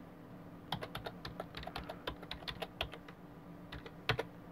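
Typing on a computer keyboard: a quick run of keystrokes starting about a second in and lasting about two seconds, then a few more keys near the end, one of them louder, over a faint steady hum.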